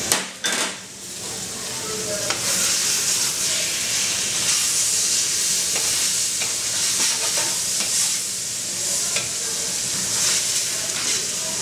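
Rice and freshly added tomato sauce sizzling in a steel paella pan while a metal spatula stirs and scrapes through it, with scattered small scraping clicks over a steady hiss. A sharp clack right at the start.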